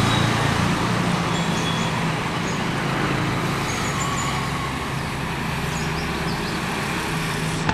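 Passenger express train running past on the track as its last coaches go by, a steady rushing noise that slowly fades as the train draws away.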